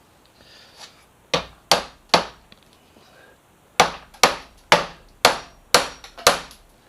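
Hammer blows on a bent metal motorcycle mirror-mount bracket, being struck to bend it back into shape. There are three sharp strikes, then after a pause a run of six more at about two a second.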